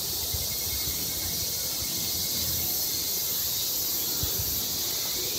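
Steady high-pitched drone of a chorus of insects, with a low rumble underneath.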